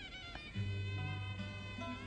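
Background music led by a bowed string instrument playing held notes over sustained low tones.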